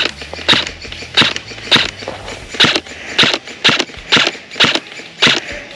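Footsteps crunching close to the microphone, about two steps a second with one short pause.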